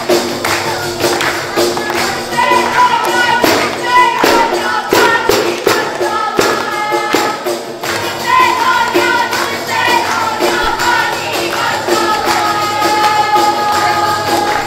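Several def frame drums with metal jingles beaten together in a fast, even dance rhythm. About two seconds in, a melody joins over the drumming.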